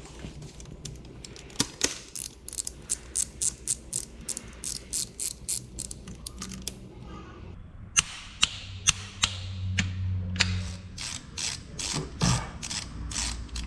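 Socket ratchet clicking in quick, even runs of about three or four clicks a second as transmission drain plugs are screwed back into a motorcycle's engine casing. The clicking breaks off for a moment about halfway through, then starts again.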